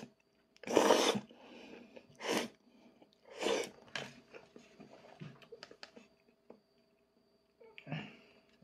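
Udon noodles slurped off chopsticks in a few short, hissing sucks, three in the first four seconds, the first the loudest, with soft chewing and mouth clicks between and one quieter slurp near the end.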